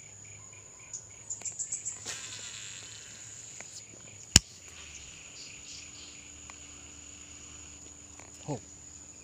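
Steady high-pitched trill of crickets, with a baitcasting reel being handled: a few quick clicks about a second in, a short falling whir after two seconds, and one sharp loud click a little past four seconds.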